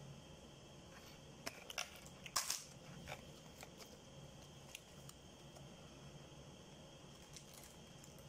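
Quiet close eating sounds: barbecued chicken pulled apart by hand and chewed, with scattered clicks and a brief crackle about two and a half seconds in.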